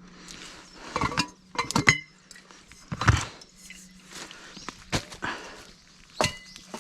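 Metal camp gear being handled: a series of clinks and knocks, about seven in all, several leaving a short ringing tone, over a faint steady low hum.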